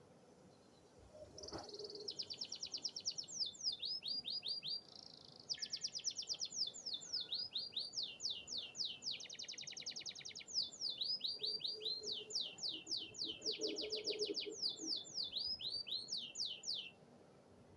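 Domestic canary singing one long, high-pitched song of fast trills and rapidly repeated downward-sweeping notes, with a short break about five seconds in.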